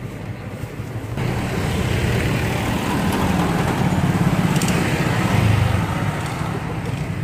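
Street traffic comes in suddenly about a second in: a motorcycle passes close by, its engine and tyre noise building to a peak about four to five seconds in and then easing off.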